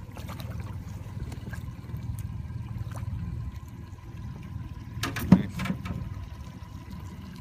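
Lake trout splashing at the surface beside an aluminium boat as it is hand-lined in, over a steady low rumble. A sharp knock about five seconds in is the loudest sound.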